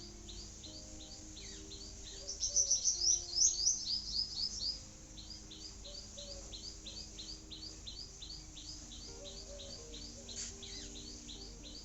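Small birds chirping: a steady run of short high chirps, about three a second, with a louder burst of rapid twittering about two to five seconds in.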